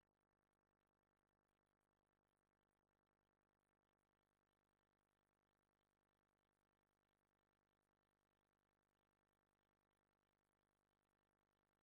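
Silence: the soundtrack is muted, with nothing audible.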